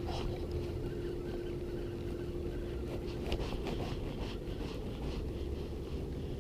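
Light clicks and knocks of a fishing rod being handled and stowed in a kayak, over a steady low rumble with a faint hum that fades about halfway through.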